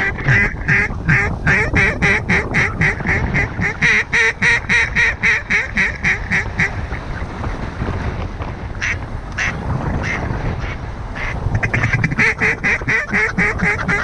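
Rapid, evenly spaced duck quacks, about four a second, in a long run that breaks off about seven seconds in, followed by a few scattered quacks and another fast run near the end. Wind rumbles on the microphone underneath.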